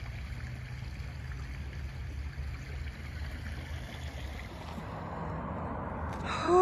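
Shallow creek water running steadily as a low, even rush. Near the end a person gives a short vocal call that rises and then falls in pitch, louder than the water.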